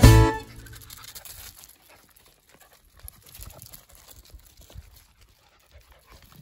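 Music cuts off about half a second in. After that comes a faint, irregular patter of an Italian greyhound's paws running on loose gravel.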